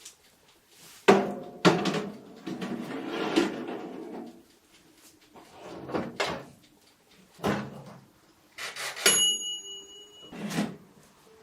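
Household objects being handled: a series of knocks, clunks and rustling clatter, like drawers, doors or items being set down. Near the end comes a single short metallic ping that rings on for about a second.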